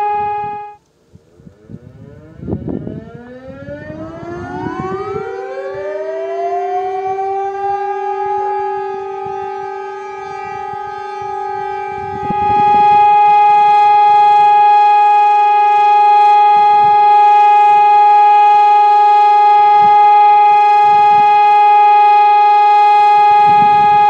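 A steady siren tone cuts off within the first second. Then several civil defence sirens, among them a HOWLER-M 125 horn siren, wind up one after another in rising glides and settle into one steady tone with a strong octave above it, the steady-tone siren-test signal. The tone jumps louder about twelve seconds in and holds.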